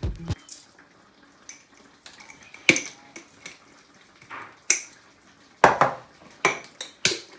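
Kitchen utensils and containers clinking and tapping while the fish is seasoned: about six separate sharp knocks, spread out, with the loudest in the second half.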